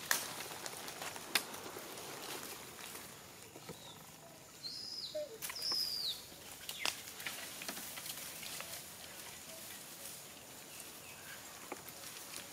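Dry leaf litter crackling and rustling under a macaque as it walks with its infant and settles down, with a few sharp snaps. Two short high chirps, the second falling in pitch, come about five seconds in.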